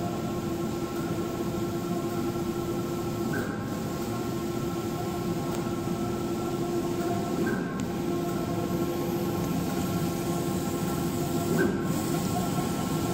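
Maxima HD 3204 wide-format solvent printer running a four-pass print job: the print-head carriage sweeps across the bed with a steady motor whine and whir. There is a brief change about every four seconds as the carriage reaches the end of a pass and reverses.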